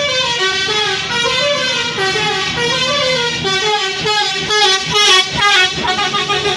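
A bus's Basuri telolet horn playing a quick tune of stepping notes, with a few short, louder blasts about four and a half to five and a half seconds in.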